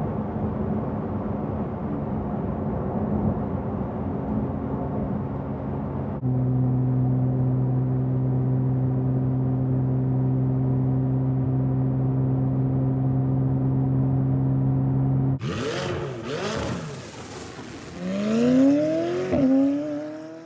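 Porsche 992 GT3's naturally aspirated flat-six and exhaust making a steady drone at highway cruise. About six seconds in, the drone switches abruptly to a louder, deeper steady drone, as two exhaust recordings are set back to back. Near the end the engine is revved twice, rising in pitch.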